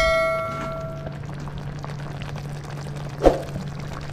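A metal cooking pan or utensil rings after being struck and fades out within about a second. Under it runs a steady low hum, with one short knock about three seconds in.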